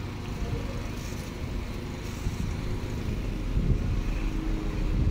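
Class 172 Turbostar diesel multiple unit pulling slowly into the platform and drawing to a stop, its underfloor diesel engines rumbling steadily.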